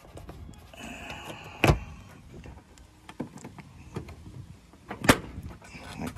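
Plastic clips of a 2020 Nissan Maxima's front bumper cover snapping loose as the cover is pulled away from the fender, with two sharp snaps, about a second and a half in and again near the end, and light plastic clicking and rubbing between them.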